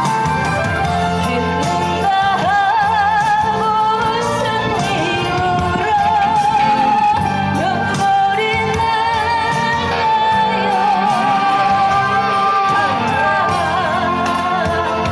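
Singer performing a Korean popular ballad over an instrumental backing track, holding long notes with a wide vibrato.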